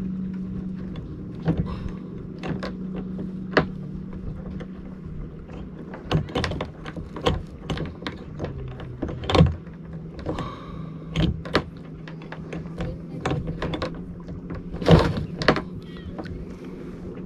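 Irregular knocks, clicks and thuds from handling a hooked fish and its line in a kayak, as a deeply set hook is worked on. The loudest knocks come about halfway through and again near the end, over a steady low hum.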